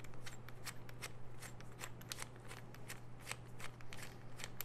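Locking nut being spun by hand onto the long threaded shaft of a Huck C6L nose assembly on a Huck Makita BV4500 lockbolt tool: faint, irregular light metal clicks and rattles, several a second, over a low steady hum.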